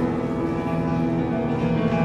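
Upright piano played by hand: full chords with notes held and ringing over one another.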